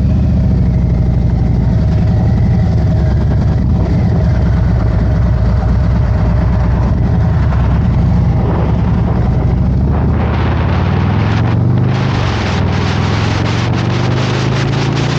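Harley-Davidson Road Glide's V-twin engine running steadily, with rushing wind noise building about ten seconds in. Near the end the engine note rises as the bike accelerates.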